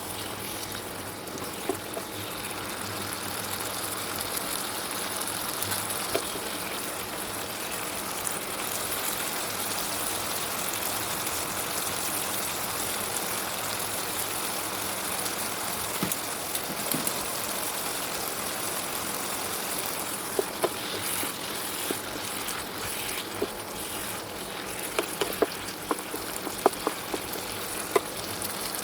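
Food sizzling steadily as a stir-fry of shrimp and mixed vegetables cooks, with a spatula now and then clicking against the pan, more often in the last several seconds.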